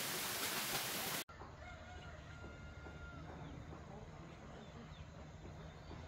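Steady rush of water noise that cuts off abruptly about a second in, followed by quieter outdoor ambience in which a rooster crows faintly.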